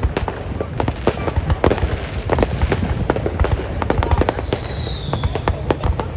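Fireworks display: rapid bangs and crackles of bursting shells over a continuous deep rumble, with a high falling whistle about four and a half seconds in.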